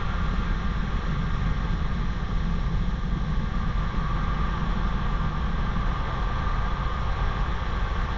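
Steady jet engine and wind noise of a Blue Angels F/A-18 in flight: a deep, even rumble with a hiss on top that does not change in level.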